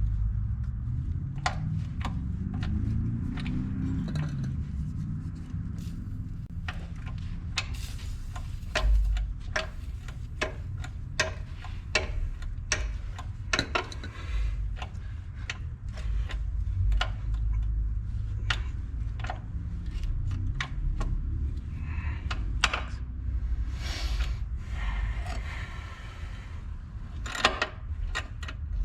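Irregular metallic clicks and clinks from a wrench as a rust-seized bolt on a skid steer's track tensioner cover is worked back and forth to free it without snapping it. A short hiss comes about three quarters of the way through.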